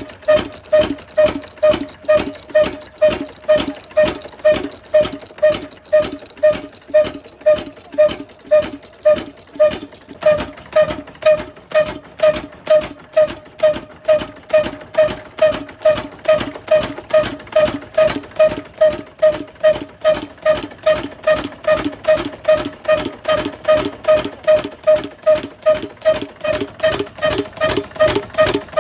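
Old stationary diesel engine running at a slow tick-over, each firing stroke a loud, evenly spaced beat with a ringing tone, about two a second, quickening slightly in the last third.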